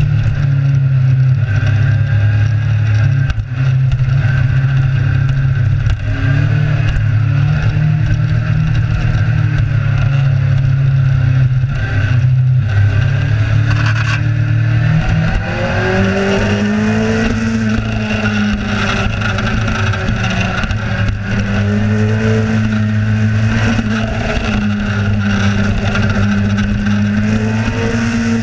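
Kawasaki Z1000's inline-four engine running while riding, over a steady rush of noise; about halfway through the engine pitch rises and holds higher.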